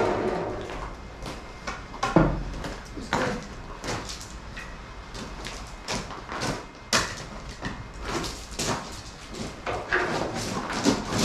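Scattered knocks and clunks of wooden lath and a steel feeder frame being handled and set down, with a heavier thump about two seconds in.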